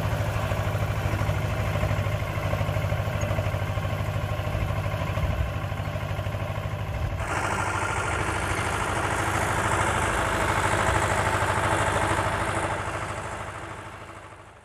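Tractor diesel engine running steadily while pulling a boom sprayer that mists herbicide over a field, with an even low firing rhythm. About seven seconds in the sound changes abruptly and a brighter hiss joins the engine, then everything fades out near the end.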